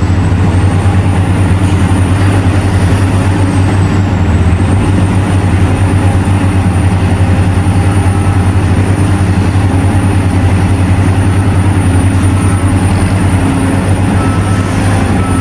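Heavy diesel mining machinery, excavators and haul trucks, running with a steady, loud, low engine drone.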